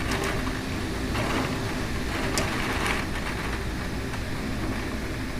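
Severe thunderstorm wind, gusting to about 60 mph, with rain, heard from behind a window as a steady rushing noise.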